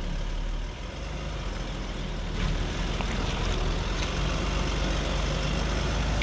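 Land Rover Discovery's 3-litre turbo V6 diesel running at low revs as it crawls slowly over rocks, a steady low rumble with a few faint knocks.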